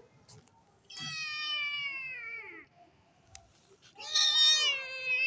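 Kitten meowing: two long, drawn-out meows, the first sliding down in pitch as it ends, the second louder and starting about four seconds in.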